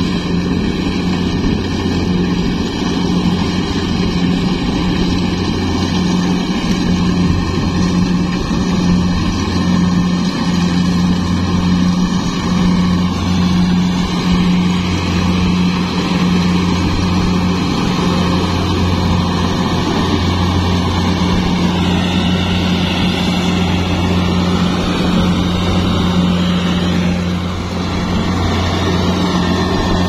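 Kubota DC-70 Plus combine harvester running steadily under load while cutting rice, its diesel engine and machinery giving a constant low hum.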